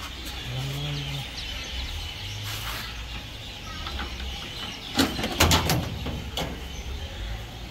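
Clicks and knocks of plastic parts being handled as the refrigerator's fan motor assembly is unscrewed and lifted out, loudest in a short cluster about five seconds in, over a steady low hum.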